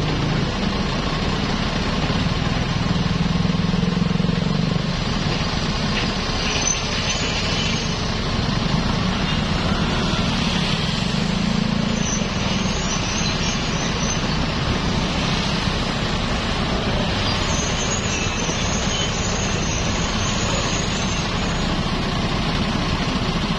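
Steady running of several small motorbike and scooter engines idling close by in a stopped queue of traffic, with a heavy excavator's diesel engine working behind them.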